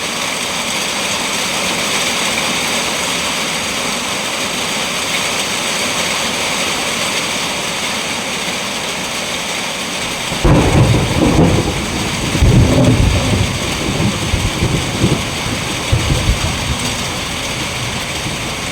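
Steady heavy rain hissing, joined about halfway through by a long rolling rumble of thunder that surges and fades in waves for several seconds.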